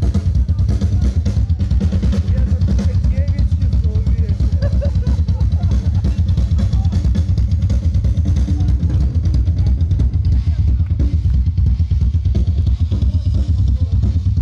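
Loud music carried by a drum kit and heavy bass: a steady, fast drum beat with kick, snare and cymbals that does not let up.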